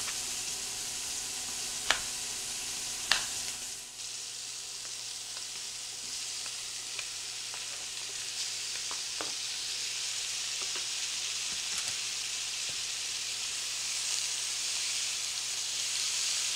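Chunks of beef roast searing in butter and oil in a hot skillet, with chopped onions added alongside: a steady hissing sizzle. Two sharp clicks come about two and three seconds in.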